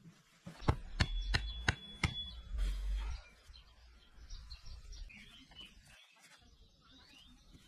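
A quick run of five sharp knocks, about three a second, with a faint ringing tone over the later ones, then a low thud. After that come soft bird chirps.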